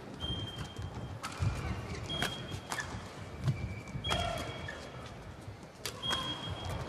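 Badminton doubles rally: several sharp racket strikes on the shuttlecock about a second apart, with short high squeaks of shoes on the court floor and the thud of footwork between hits.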